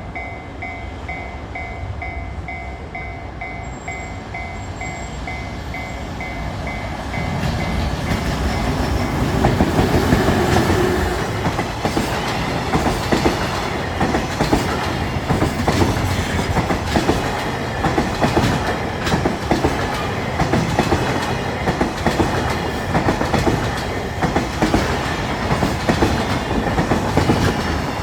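Japanese level-crossing alarm bell dinging at about two strikes a second, until a freight train's approach covers it about seven seconds in. The train then passes close by, its wagons' wheels clattering steadily over the rail joints.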